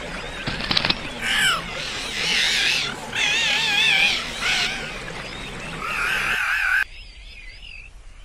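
Several short bursts of wavering, warbling animal-like calls, with a few quick clicks about half a second in. The sound drops away abruptly near the end.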